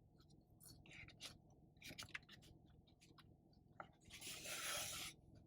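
Faint chewing of food, with small scattered mouth clicks. About four seconds in comes a hiss lasting about a second.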